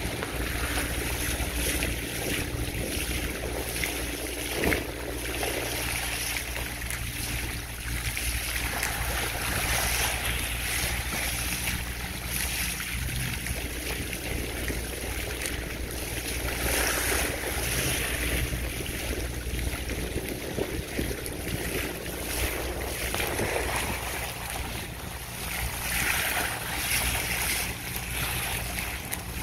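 Bow wave of a sailing trimaran under way, water rushing and splashing off the hull and swelling and easing every few seconds, with wind on the microphone.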